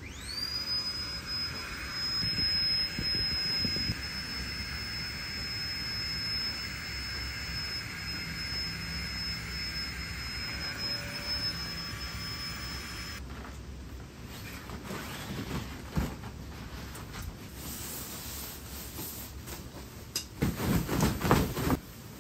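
A small electric air pump spins up with a quickly rising whine and runs steadily, inflating an air mattress, then cuts off about thirteen seconds in. After it stops there is loose nylon rustling as a sleeping bag is handled, loudest near the end.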